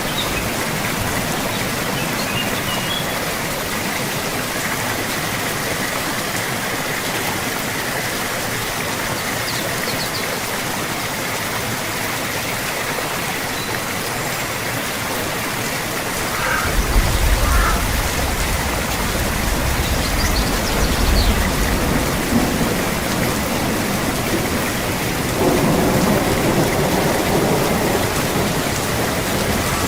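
Steady rain falling in an even hiss, with low rolling thunder that starts a little past halfway and swells again near the end.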